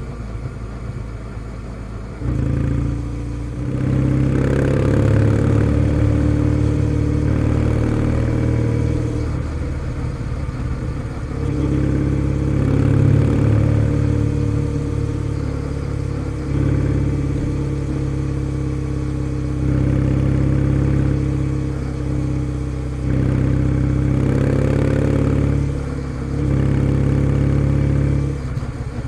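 Kawasaki W650's air-cooled parallel-twin engine through a POSH W1 full exhaust, running low for the first two seconds and then pulling hard. The note then dips and comes back up several times as the throttle is eased off and reopened.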